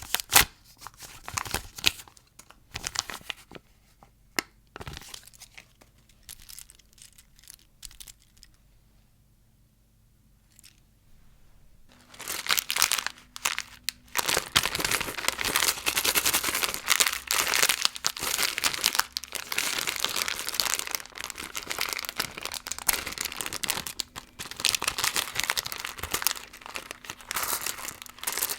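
Plastic candy wrappers crinkling and tearing as candy is unwrapped. There are scattered crackles at first and a quiet pause of a few seconds, then dense, continuous crinkling from about halfway through.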